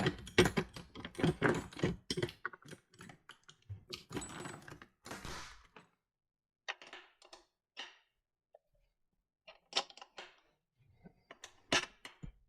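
Hand tools being handled, metal sockets and wrenches clinking and clicking. There is a dense run of small clicks and clatters for about six seconds, then scattered single clicks.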